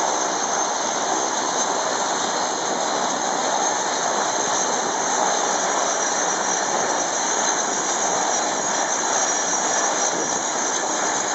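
Pilatus PC-7 turboprop trainers taxiing past one after another. Their PT6A turbine engines and propellers make a steady rushing hiss with a thin high whine.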